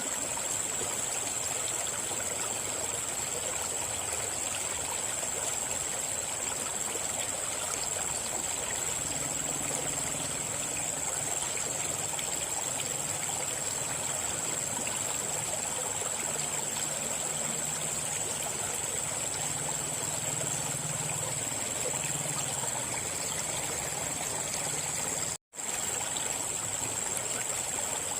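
River water flowing steadily, an even rushing and trickling, with a thin steady high tone above it. The sound cuts out for an instant near the end.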